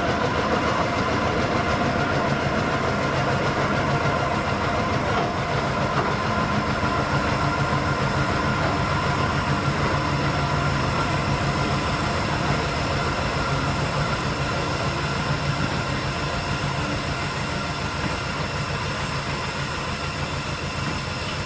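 Diesel engine of a small railway locomotive running steadily with a droning hum, gradually getting quieter.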